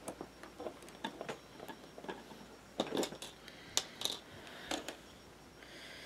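Faint, irregular small clicks and taps of plastic locking stitch markers being opened and clipped onto the corners of a crochet square, a few louder clicks in the middle.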